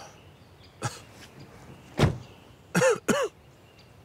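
A car door shutting with a sharp thud about two seconds in, followed by two short throat-clearing sounds.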